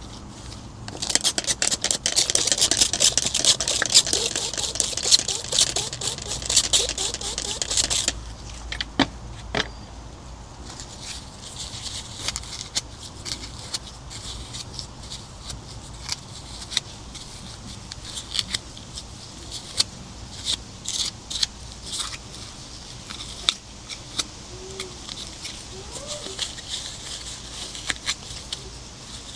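Rapid scratchy scraping for about seven seconds, then scattered clicks and lighter scrapes.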